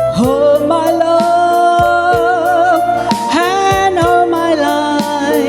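An elderly woman singing with a live band of drums, keyboard, bass and rhythm guitar: long held notes with vibrato, a new sung phrase starting about three seconds in, over steady cymbal strokes.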